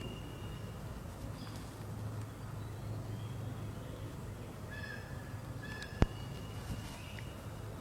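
Faint outdoor ambience with a steady low hum and a few short, high whistled bird calls. One sharp click comes about six seconds in.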